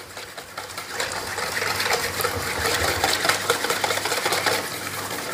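Crepe batter being beaten by hand in a bowl while flour is worked in a little at a time to avoid lumps. A utensil clicks and scrapes against the bowl in a fast, steady, even rhythm that picks up about a second in.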